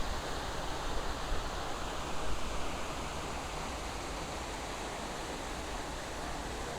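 Düden waterfall rushing, a steady even hiss of falling water.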